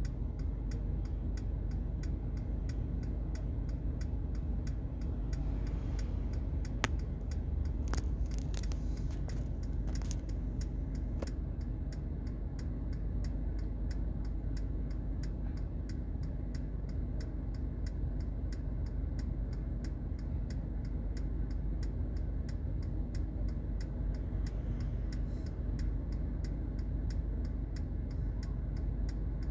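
Steady low rumble inside a car's cabin as it idles in stopped traffic, with a regular light ticking about twice a second.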